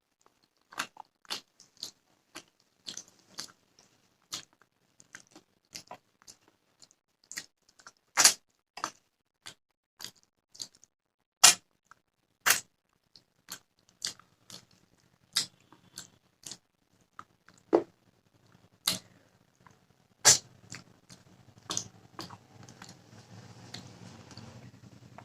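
Close-up eating sounds of fish curry, rice and raw onion: chewing with sharp, irregular wet mouth clicks and crunches, several a second at times. A faint steady hum comes in near the end.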